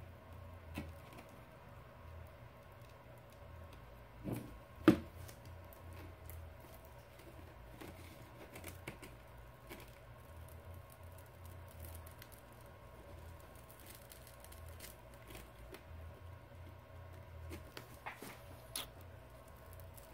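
Small scrapes and clicks from a thin prying tool working under the cracked glass screen of a Samsung Galaxy S7 Edge, separating it from the adhesive on the frame. A sharp click about five seconds in is the loudest sound, with a few smaller ones near the end over a faint steady hum.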